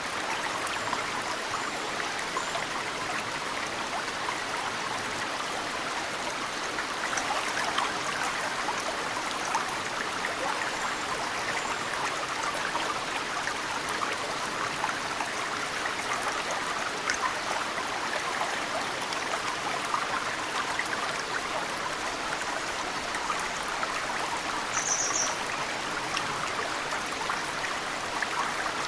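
Mountain stream flowing steadily, with snowmelt dripping into the water in many small drips and splashes. A short high bird chirp comes once near the end.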